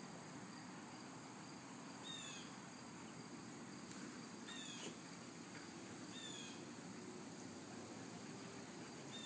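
Steady high-pitched drone of insects, with a bird giving a short falling whistled call four times, about every two seconds.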